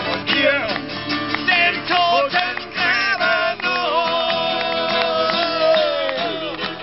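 Live folk protest-song music in an instrumental stretch: a violin playing sliding melodic phrases, then a long held note that bends downward, over string accompaniment.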